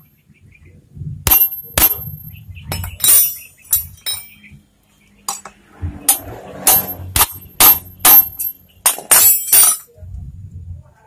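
Sharp metallic taps on a steel rod held upright on a ball bearing, driving the bearing into a power sprayer's aluminium gear housing. There are a dozen or more ringing strikes in irregular runs, with bumping and handling noise between them.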